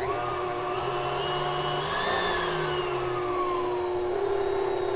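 Electric kitchen mixer running steadily, mixing pumpkin bread batter of eggs, pumpkin and almond flour, with an even hum and a faint whine that wavers in pitch.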